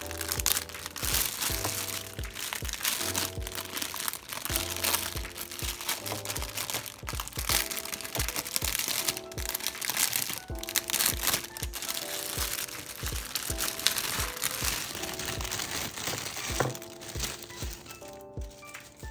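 Clear plastic gift wrap crinkling and crackling as it is handled and opened, over lo-fi hip hop background music with a steady beat.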